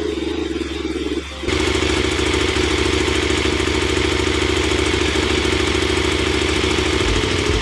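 KTM 1090 Adventure R's V-twin engine idling steadily on the stand, warming the oil before an oil change. It gets louder about a second and a half in and holds there.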